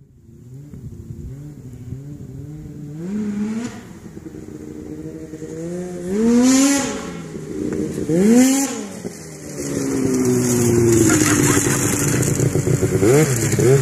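Arctic Cat ProCross F800 snowmobile's two-stroke twin, fitted with a GGB aftermarket exhaust can, revving up and down in throttle blips, loudest about six and a half and eight and a half seconds in, then running steadily and louder from about ten seconds as the sled comes up close.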